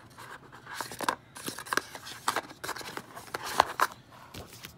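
Cardboard packaging of an Apple TV box being handled by hand: a run of irregular scrapes, rustles and taps, the sharpest about three quarters of the way through.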